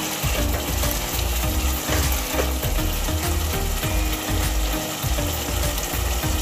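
A spoon scraping and stirring through thick onion-tomato masala frying in oil in a nonstick pan: a quick, uneven run of scraping strokes over a steady sizzle.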